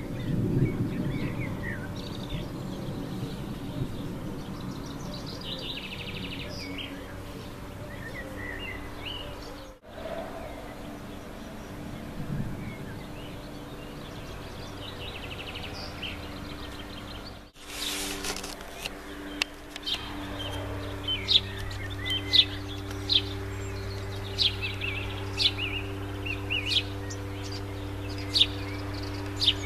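Birds singing and chirping, with a low rumble of distant thunder at the start and again briefly near the middle. In the last third, sharp bird chirps stand out over a steady low hum.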